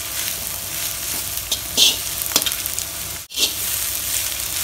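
Shredded cabbage sizzling in hot oil in a pan as it is stir-fried with a metal ladle, which scrapes and clicks against the pan several times. The sound cuts out for an instant a little over three seconds in.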